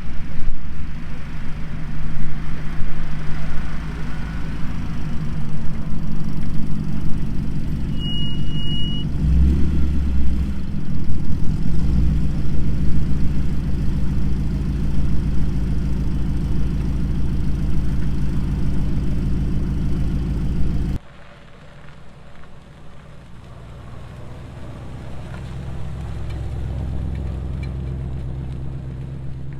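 Hot rod engine running loud and close through its exhaust, with a short high beep about eight seconds in. It cuts suddenly to a quieter hot rod engine running, which slowly grows louder.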